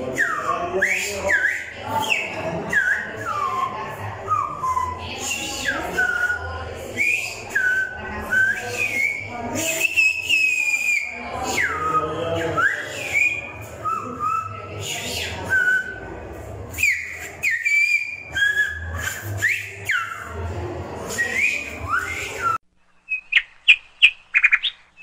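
Silbo Gomero, the whistled Spanish of La Gomera, whistled with fingers in the mouth, here another person's fingers: phrase after phrase of sharp whistled glides rising and falling in pitch. Near the end it cuts off abruptly, giving way to a few quick, high chirps.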